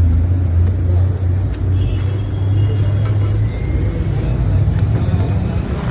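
Steady low engine-like hum under a noisy street background, with a few faint clicks.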